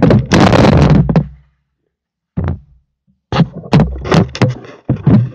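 Loud knocks, thuds and rustling handling noise close to the microphone: a heavy burst in the first second, one short knock about halfway, then a quick run of sharp knocks near the end.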